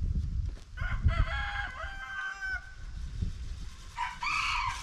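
A rooster crowing twice: one long crow about a second in that rises and then holds its last note, and a second crow starting near the end.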